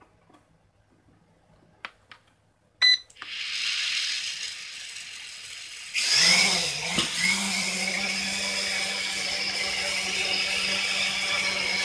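Small toy quadcopter drone: a brief beep about three seconds in, then its motors and propellers spin up with a high whine. About six seconds in it gets much louder as it lifts off, then holds a steady buzzing hum while it hovers.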